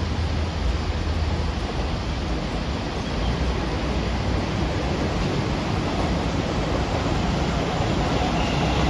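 Steady rushing noise with a low rumble from a passing train, with no distinct clicks or wheel beats.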